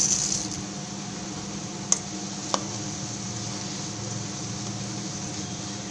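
Mustard seeds and chana dal frying in hot sesame oil in a large kadai: a steady sizzle that eases off in the first half second, then holds. Two sharp clicks come about two and two and a half seconds in, over a faint steady hum.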